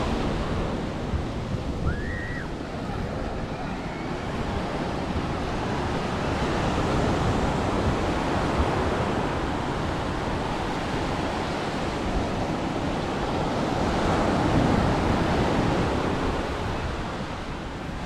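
Surf breaking and washing up on a beach, swelling twice as waves come in, with wind rumbling on the microphone.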